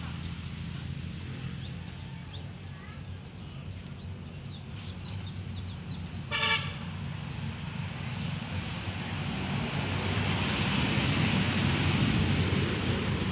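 A short vehicle horn toot about six seconds in, the loudest sound, over a steady low hum of outdoor traffic noise that swells towards the end.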